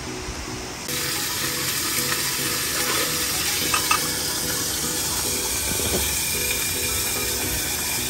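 Soft background music with a steady, even hiss like running water or rain that comes in suddenly about a second in and holds. Two short sharp clicks sound close together a little before the middle.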